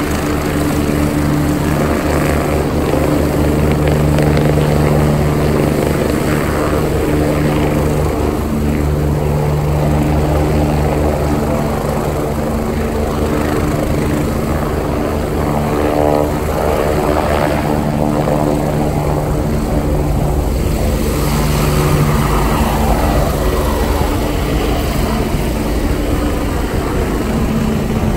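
Air ambulance helicopter lifting off and climbing away overhead: a fast, even rotor beat over a steady turbine whine, rising in pitch partway through as it takes off.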